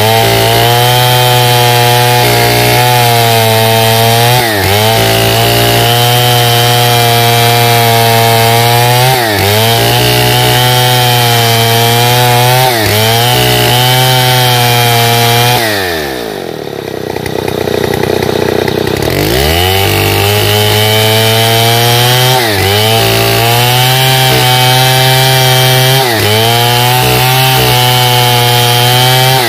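Stihl 070 chainsaw's single-cylinder two-stroke engine running at high revs under load, ripping lengthwise through a pine log. About halfway through the revs fall to idle for a couple of seconds and climb back to full throttle, and there are a few brief dips in pitch elsewhere.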